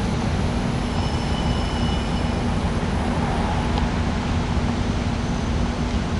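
Air conditioner running: a steady rushing of air from its fan over a constant low hum.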